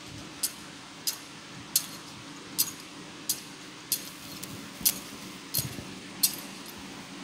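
Metal thurible (censer) clinking as it is swung during incensing, about nine sharp metallic clinks at an even swinging rhythm, roughly one every two-thirds of a second.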